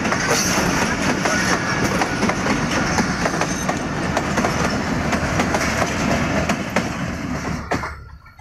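Passenger train coaches rolling past close by: a steady rumble of wheels on rail with repeated clicks as the wheels cross the rail joints. The sound falls away sharply near the end.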